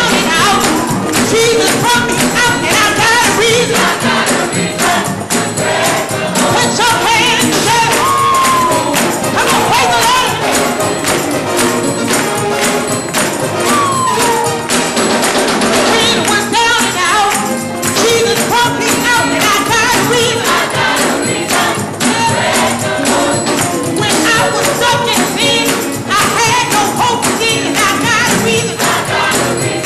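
Youth gospel choir singing with band accompaniment and tambourine.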